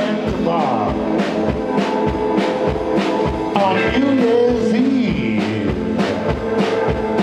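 Live rock band playing a song: drum kit keeping a steady beat under guitars, with a wavering lead line over the top.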